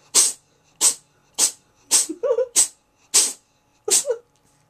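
Domestic cat in a sneezing fit: seven short, sharp sneezes in a rapid, even run, about one every 0.6 seconds.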